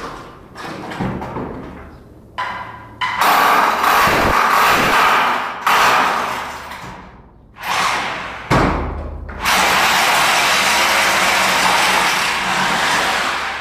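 A power tool running in several bursts of a few seconds each, each starting abruptly, with a few dull thumps between the runs.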